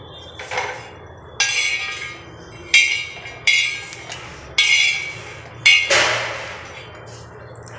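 A steel spoon scraping roasted peanuts off an iron pan and tipping them into a stainless-steel mixer-grinder jar: about six metallic clinks and rattles, each ringing briefly before dying away.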